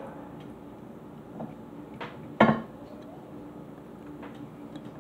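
Small metal parts and tools handled at a workbench: a few light clicks, then a sharp metallic clack with a brief ring about halfway through, over a steady low hum.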